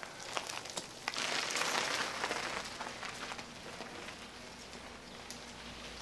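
Homemade cargo bike setting off over dirt and gravel: a crunching hiss from the tyres with scattered clicks, loudest a second or two in as it rolls past, then fading as it moves away.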